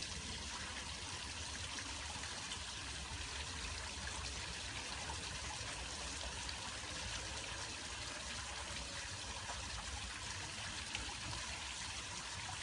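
Steady rushing noise like running water, even throughout with no distinct events.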